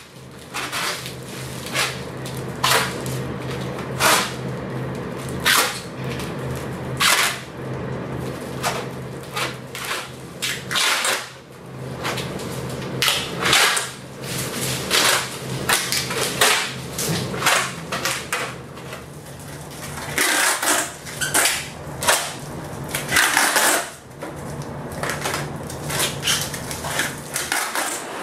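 Plastic packing tape being pulled off the roll in repeated loud rips, each about a second long, as it is wound around a leg, over a steady low hum.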